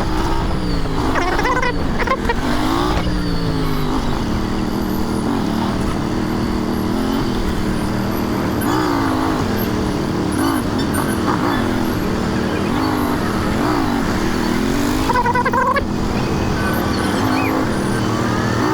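Royal Enfield Interceptor 650's parallel-twin engine running under way, its note rising and falling with the throttle, over a steady low rumble of wind and road noise.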